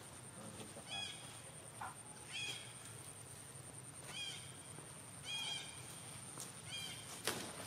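A baby monkey gives about five short, high-pitched cries, each bending up and down in pitch, one every second or two. A single sharp click sounds near the end.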